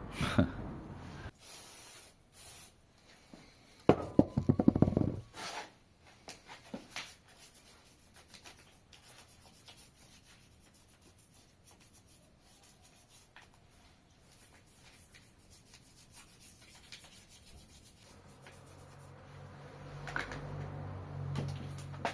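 Scraping and rubbing on the casing of a Subaru WRX five-speed manual gearbox as it is cleaned, with a short burst of rapid clicking about four seconds in. A low steady hum comes in near the end.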